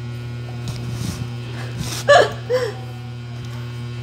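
A steady electrical mains hum with a few light handling knocks. About two seconds in there are two short, high-pitched vocal cries, the first rising in pitch and the second lower, about half a second apart.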